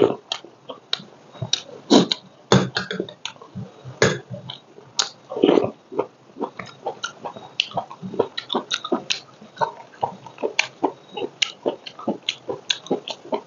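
Close-miked eating: sips from a spoon and chewing with a dense run of short wet smacks and clicks, the loudest few in the first half.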